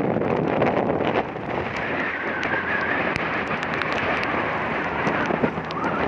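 Wind buffeting the microphone on a moving motor scooter, mixed with the scooter running and tyre noise on the wet road.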